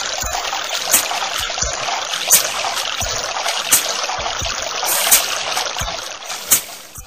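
Many shovels scraping and tossing dry, loose soil: a steady gritty hiss like pouring sand, with sharp ticks about every second and a half. It fades near the end.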